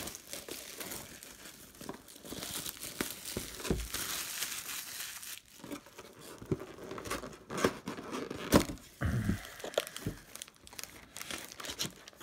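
Plastic shrink-wrap crinkling and tearing as it is pulled off a cardboard trading-card box, in irregular crackles with a few sharp clicks and soft knocks of the box being handled.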